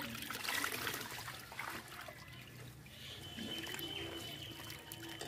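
Water splashing and trickling as a dense crowd of goldfish thrashes at the surface of a netted pond pen, in many small irregular splashes.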